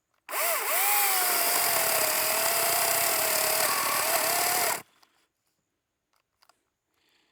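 Echo DCS2500T battery top-handle chainsaw cutting wood for about four and a half seconds, its motor whine settling lower as the chain loads in the cut. The battery is nearly drained.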